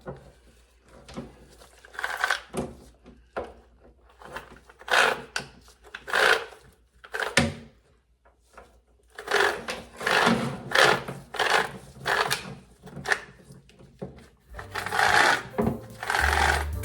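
Bicycle chain clinking and rattling in irregular bursts as it is straightened out and handled, with short quiet gaps between.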